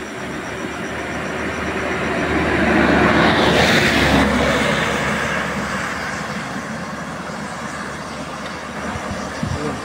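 A vehicle passing by: a rumbling noise swells to a peak about four seconds in, then slowly dies away, with a couple of faint knocks near the end.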